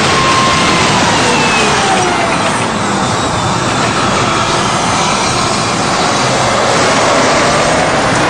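Army tank running and moving on its tracks: a loud, steady mechanical rumble and clatter with a faint whine that slides up and down in pitch.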